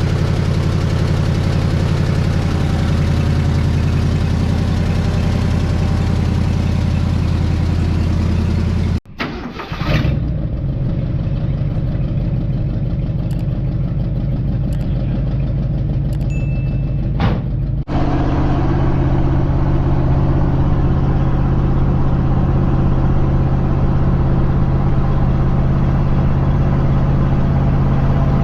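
The 1968 Ford F-250 pickup's engine running at a fairly steady pitch, heard in three stretches separated by abrupt cuts about nine and eighteen seconds in, with a few light clicks in the middle stretch.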